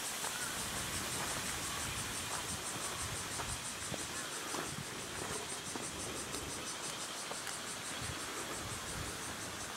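Cicadas buzzing in a steady, high, rapidly pulsing chorus over faint outdoor background noise.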